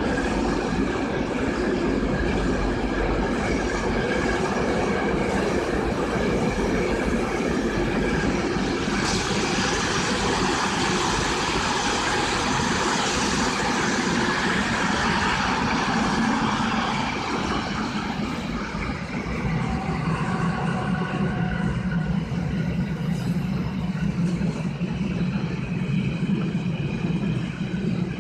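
Freight train's wagons rolling past at speed, container flat wagons and then car-carrier wagons, giving a steady, loud rolling noise of wheels on the rails. About two-thirds of the way through, the noise turns lower and duller.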